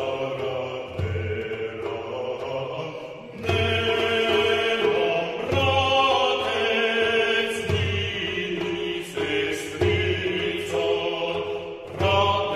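Music: voices singing a slow Bulgarian song in chorus, with low beats underneath.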